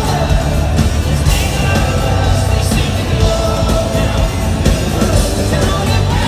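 A live pop band plays in a large arena. Singing runs over acoustic guitar, keyboards and a steady, heavy low beat.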